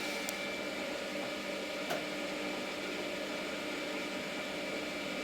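Electric motor and 1:50 reduction gearbox running steadily, turning the lead screws that slowly move the machine's table up or down. There is a single click about two seconds in.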